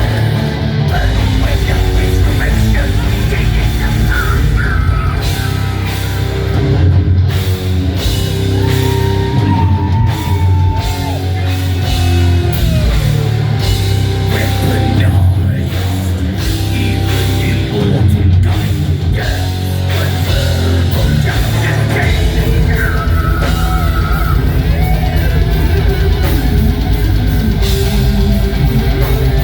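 Rock band playing heavy, loud music on electric guitar and drum kit.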